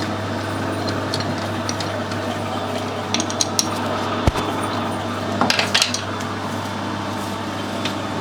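Metal tools and parts clinking and clattering as a lathe is set up, over a steady machine hum. A few sharp clinks come about three seconds in and a short cluster around the middle.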